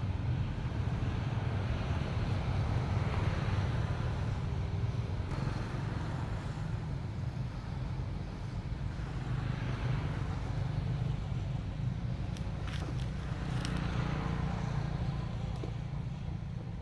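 Steady low outdoor rumble with a hiss above it that swells and fades every few seconds.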